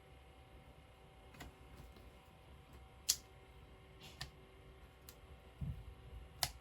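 Scattered light clicks and taps of chipboard letter stickers being picked up and pressed onto a paper layout, about five in all, the sharpest about halfway through, with a soft thump near the end.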